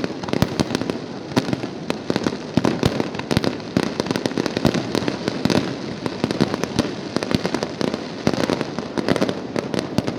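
Fireworks display going off in a rapid, continuous barrage of sharp bangs and crackles, many per second, with no pause.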